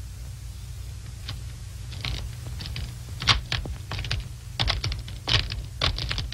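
Footsteps crunching in snow: a string of short, crisp crunches that start about a second in and come faster and louder, as if approaching. A low steady hum runs underneath.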